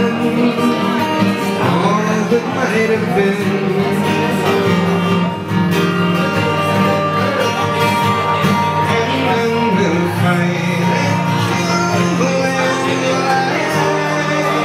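A man singing a song to his own acoustic guitar accompaniment.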